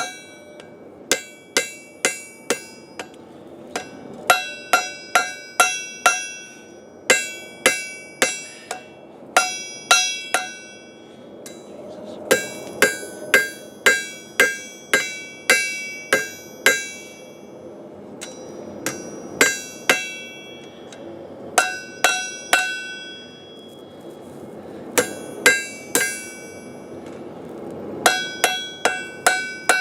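Hand hammer striking hot square steel bar stock on an anvil, in runs of four to eight quick blows at about three a second with short pauses between runs. Each blow rings out with a clear metallic anvil ring. The smith is forging a 90-degree bend over the anvil's sharp edge.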